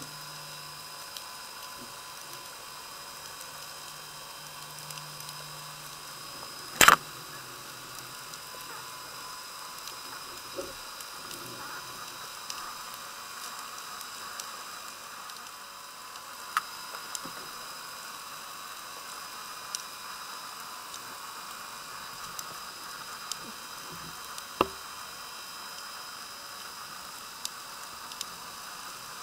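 Underwater ambience heard through a submerged camera: a steady crackling hiss with scattered sharp clicks, one loud click about seven seconds in and another near twenty-five seconds.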